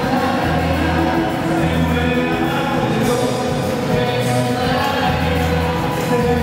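Worship music: a choir singing over instrumental accompaniment, with sustained held notes and a repeating low bass line.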